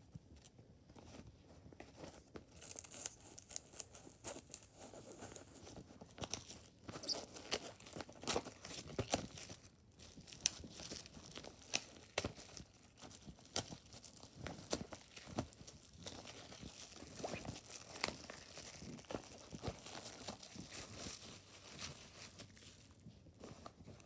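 Plastic shrink wrap being torn and crumpled off a disc case, with irregular crinkling and scattered sharp clicks of the plastic packaging being handled.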